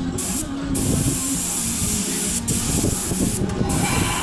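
Spray gun hissing as it sprays lacquer onto a wooden door, with short breaks in the spray about half a second in and again after about three and a half seconds.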